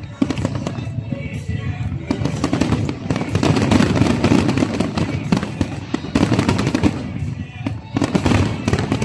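Fireworks going off in quick succession, a dense run of bangs and crackles with rumbling booms underneath, alongside music.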